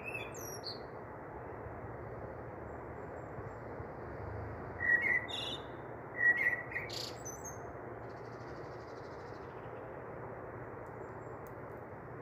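A few short bird chirps, two close together about five and six seconds in, over a steady background hiss.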